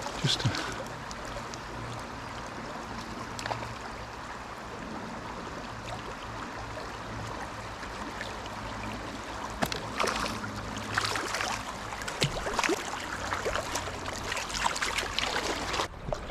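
Fast-flowing river water running steadily. From about ten seconds in, close splashes, drips and trickles come and go over it.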